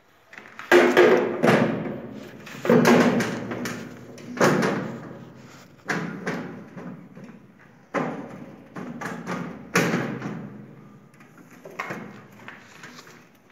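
A series of heavy thuds or bangs, roughly one every one to two seconds, each ringing on briefly before the next.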